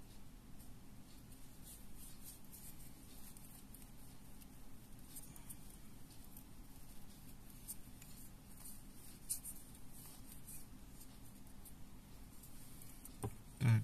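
Faint scratching and rustling as a steel awl is pushed and twisted through a small green EVA foam lure segment to pierce it, with a few light ticks.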